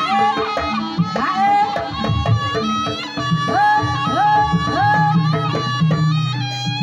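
Live Javanese jaranan ensemble music: drums and low steady tones under a high melody whose notes slide up into place.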